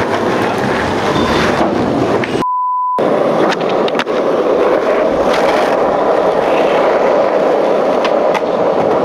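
Skateboard wheels rolling fast on rough asphalt: a loud, steady rumble with scattered sharp clicks. About two and a half seconds in, the sound drops out for half a second under a steady beep, a censor bleep.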